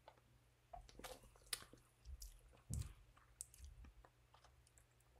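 Faint sips and swallows as a man drinks from an aluminium drink can: a scattered handful of soft, short mouth and throat sounds.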